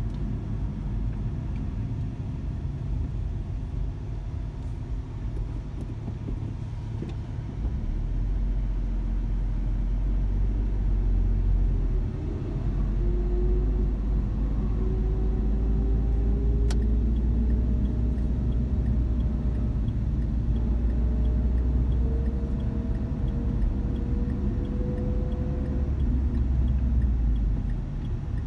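Car cabin noise from a Renault Twingo: engine and tyre rumble that steps up about eight seconds in as the car pulls away, with a faint whine rising slowly through the middle as it gathers speed.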